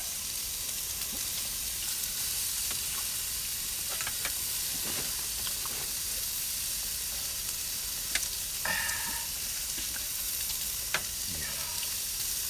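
Meat sizzling steadily in a pan on a single-burner camping gas stove, with a few sharp clicks of utensils or plates.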